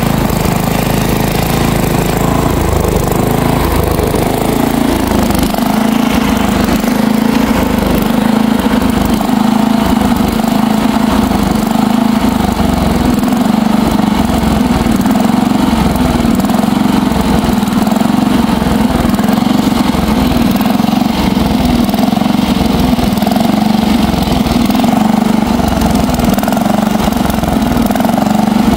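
The 10 hp engine of a 1960s Bolens 1050 garden tractor running steadily; its note changes about five seconds in, then holds steady.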